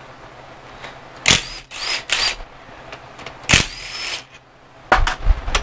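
Ryobi cordless impact wrench run in four short trigger bursts, each with a whine rising as the motor spins up, as it loosens the bolts of an engine accessory bracket.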